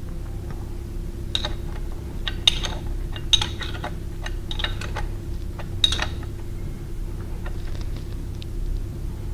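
Metal bolts and hand tools clinking and clicking irregularly as bolts are threaded and snugged back down into a grinder's motor C-face, over a steady low hum.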